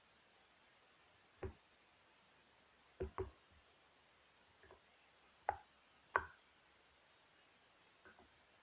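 Near silence, broken by a handful of faint, short taps and knocks at uneven intervals, two of them close together about three seconds in.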